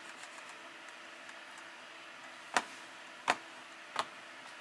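A button on a Dell laptop clicked three times, about 0.7 s apart, in the second half, as the owner tries to abort a diagnostic test that is not responding. Under it runs the steady whir of the laptop's cooling fans, spinning at full speed under a CPU stress test.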